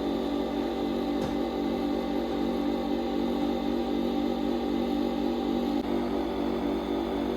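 Nespresso Vertuo Next capsule coffee machine running its first cleaning cycle: a steady mechanical hum with a fast pulsing buzz as it pumps water from the tank through the machine.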